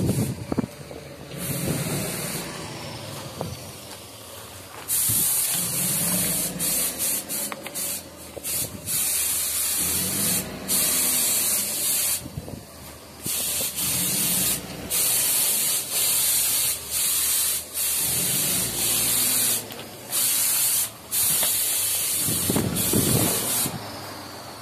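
Paint spray gun hissing as it coats the steel bridge girders, stopping and starting in bursts of one to a few seconds from a few seconds in. A low rumble runs underneath.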